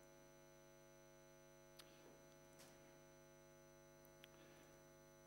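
Near silence: a steady mains hum with many overtones, and three faint clicks.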